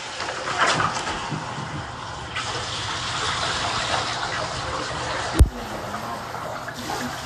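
Bath water running and being poured from a cup over a dog in a bathtub, a steady splashing wash that grows stronger a couple of seconds in, with one sharp knock about five seconds in.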